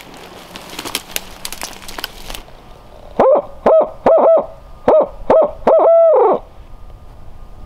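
A hunter hooting like a barred owl as a locator call to make a turkey gobble: a run of about seven loud hoots, the last drawn out and falling away. Before it come a couple of seconds of rustling and crackling.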